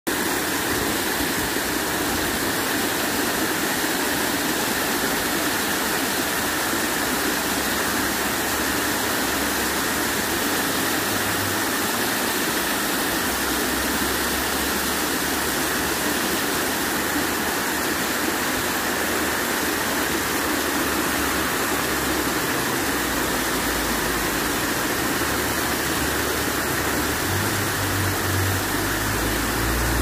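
Tiered outdoor fountain splashing steadily as water spills over its stone ledges into the pools below, with jets spouting at the top. A low rumble swells under it near the end.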